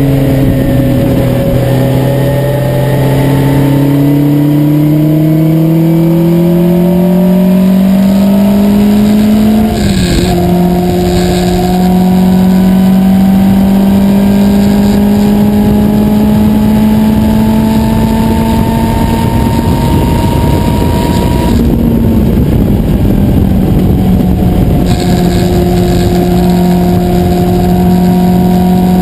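Lola Mk1 sports racer's engine heard from its open cockpit, its note climbing steadily as the car accelerates, dropping sharply at a gear change about a third of the way in, then rising slowly again. It changes once more around two-thirds in and then holds a steady note, with wind and road noise throughout.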